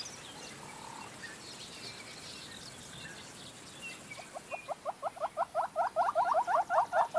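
A hornbill calling: a fast run of short, slightly rising notes, about seven a second, that starts about four seconds in. Before it there are only faint chirps of small birds.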